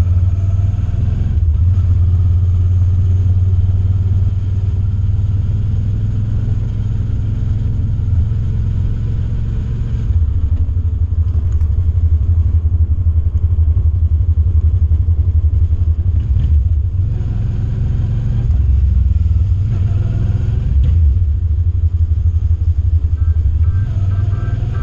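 Suzuki V-Strom 650's V-twin engine running, a loud, continuous low drone that shifts in level a few times.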